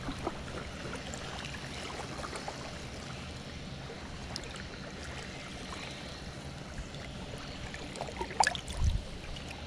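Shallow water washing steadily at the shore, with a few short splashes and a low thump about eight seconds in as a small snook is handled at the water's edge.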